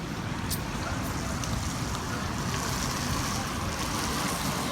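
Steady street traffic noise: a motor vehicle engine running with a low rumble, with a single click about half a second in.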